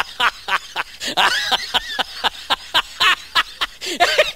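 A comic sound effect added in editing: a fast run of short, high-pitched notes, about six a second, with a wobbling, sliding pitch.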